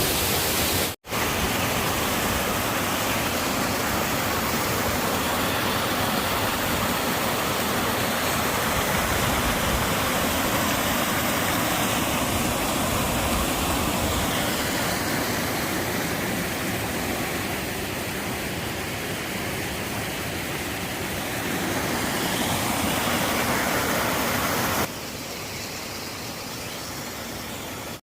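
Waterfall: falling water making a dense, even rush. It cuts out for a moment about a second in and drops quieter near the end.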